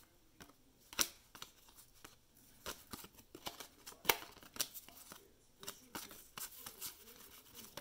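Cardboard baseball cards being thumbed off a hand-held stack one at a time and set down on a stone countertop: a run of soft card snaps and light taps, two of them sharper, about one and four seconds in.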